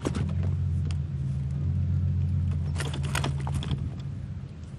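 Steady low hum of a running engine, with a cluster of clicks and rattles about three seconds in as a landing net holding a fish is lifted out of the sea.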